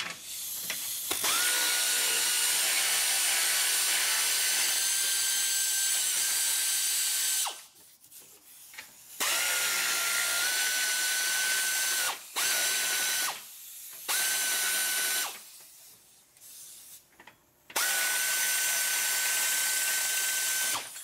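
Pneumatic air ratchet whining as it spins bolts out of steel bumper brackets. It runs in five bursts: one long run of about six seconds, then four shorter runs with pauses between. The pitch climbs briefly as it first spins up, then holds steady.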